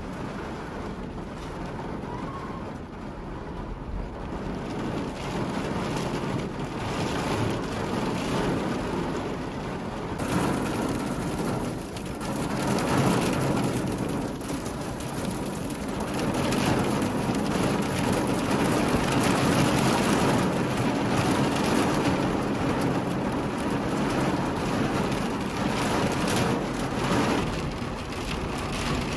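Heavy rain falling, a dense wash of many drops that grows heavier about ten seconds in.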